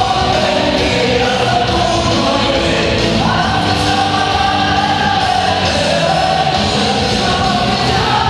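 Loud dance music with a singing voice, played over a party DJ's sound system.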